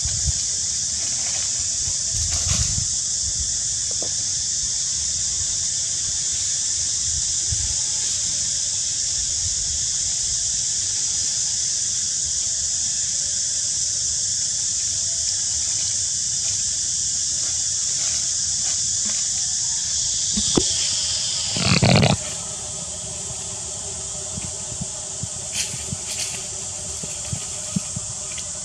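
Steady high-pitched insect drone that falls in pitch and cuts off about three-quarters of the way through, at the same moment as a short, loud burst of noise. Scattered faint clicks and rustles follow.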